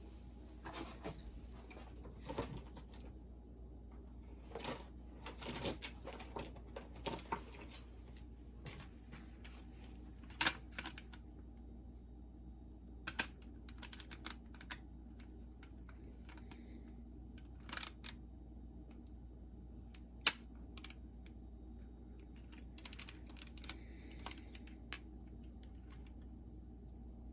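Irregular small clicks, taps and brief rubbing from hands working on the open plastic mechanism of a Sony WM-FX28 cassette Walkman while fitting a new drive belt, with a few sharper clicks about 10, 18 and 20 seconds in.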